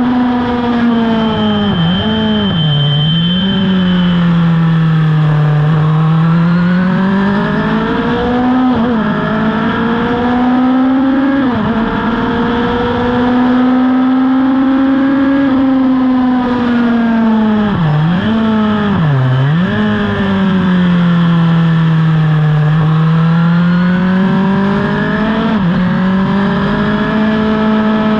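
Racing motorcycle engine under hard use from onboard, its note rising and falling with the revs through the gears. Around 2 s in and again around 18 s in, quick dips and bounces in pitch mark downshifts with throttle blips. Wind rush runs underneath.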